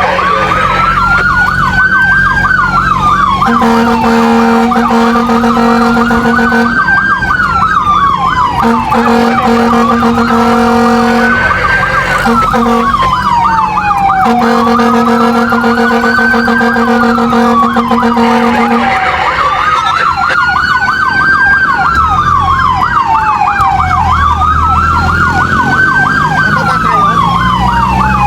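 Fire truck siren sounding a slow wail that rises and falls about every five seconds, with a fast warbling siren tone layered over it. A lower steady tone sounds in four long blasts during the first two-thirds, and engine rumble picks up near the end.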